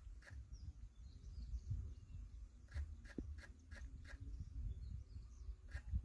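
Quiet open-air ambience with a low rumble, faint high chirps of distant birds and a quick irregular run of short sharp clicks in the middle, plus single clicks near the start and near the end.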